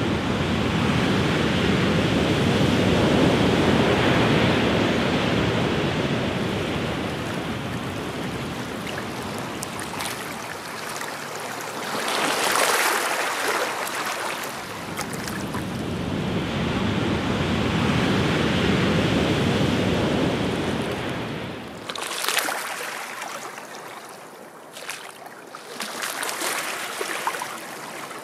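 Sea waves breaking and washing up a shore in slow surges, three swells in all. In the last few seconds the wash is quieter, with small splashes of water among rocks.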